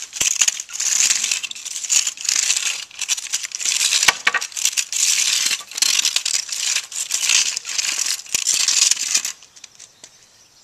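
Stiff-bristled push broom scraping on a concrete sidewalk in repeated strokes, about one a second, stopping abruptly about nine seconds in.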